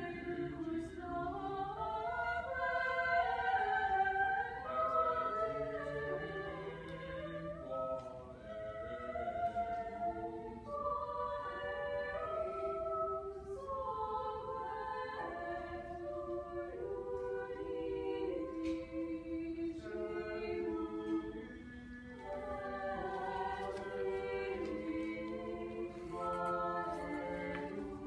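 A small vocal ensemble of six voices singing a cappella in several parts, holding sustained chords that shift from note to note.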